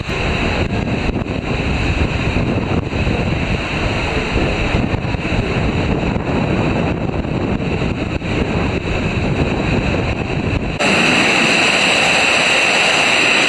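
Rushing water and wind buffeting the microphone on a water coaster slide, a steady rumbling noise. About eleven seconds in it changes abruptly to a brighter, steady hiss.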